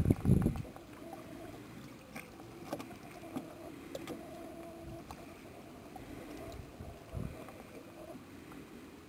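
Wind buffeting the microphone, dying down about half a second in, then faint riverbank ambience: soft water sounds, a faint steady hum and a few light knocks.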